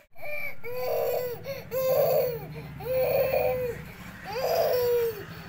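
Young child crying in a rhythmic run of wails, about one a second, each rising and falling in pitch.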